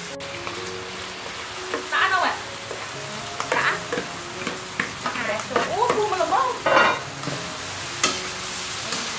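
Food frying in a hot wok with a steady sizzle, a metal spatula scraping and knocking against the wok as it is stirred. The scrapes come in several short, squeaky bursts, the loudest about two, three and a half, and five to seven seconds in.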